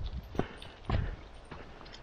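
Footsteps on a dirt forest trail covered in fallen leaves and pine needles: two thudding footfalls about half a second apart, part of a steady walking pace.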